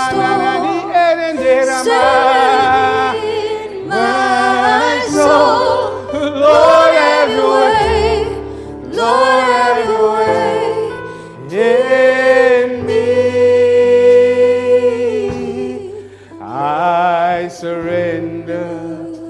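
Live worship band and singers performing a slow gospel worship song: several voices sing long held notes with vibrato over keyboard and bass guitar.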